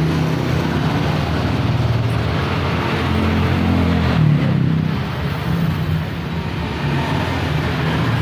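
A motor vehicle engine running steadily, its pitch shifting a little about halfway through.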